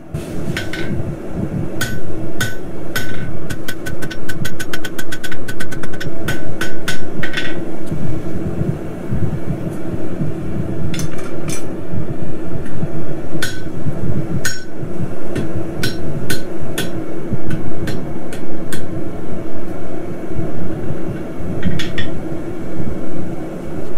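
Hand hammer forging on an anvil: heavy blows with sharp ringing strikes off the anvil, including a quick run of light ringing taps about four seconds in. A steady low roar runs underneath.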